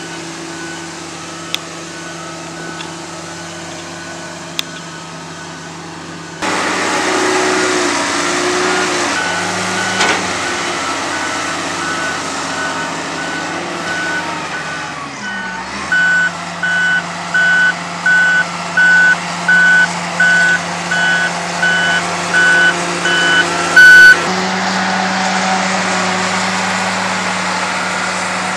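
XCMG ZL50GN wheel loader's diesel engine running with its reversing alarm beeping, about three beeps every two seconds, faint at first and loudest in the later part. The engine sound jumps abruptly in level twice.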